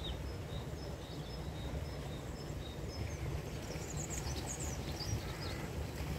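Small birds calling in bare trees: one repeats a short high note at an even pace, with a burst of quick higher chirps about three seconds in, over a steady low rumble.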